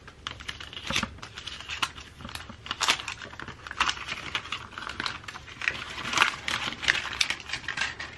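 AirPods Max packaging and headphones being handled by hand: irregular crinkling with light taps and clicks.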